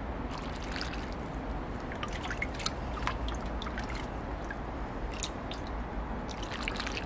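Lamb broth being ladled and dripping, with small scattered clicks and wet splashes over a steady low hum.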